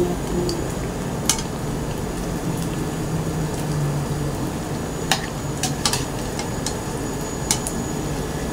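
Battered jackfruit pieces deep-frying in hot oil in an aluminium wok, a steady sizzle, with a few sharp clicks of the metal spatula against the pan, once early and several more past the middle.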